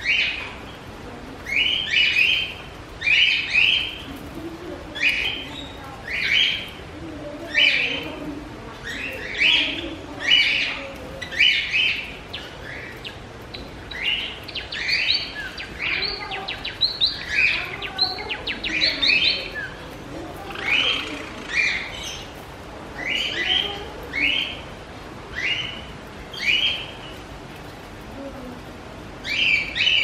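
Small cage birds chirping: short, sharp calls repeated about once a second, coming faster for a few seconds in the middle.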